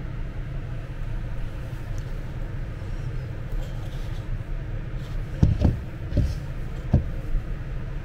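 Steady low rumble, with a few dull knocks about five to seven seconds in as the filter is handled.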